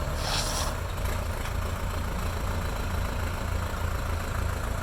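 Off-road vehicle engine idling steadily with a low rumble, and a brief hiss about half a second in.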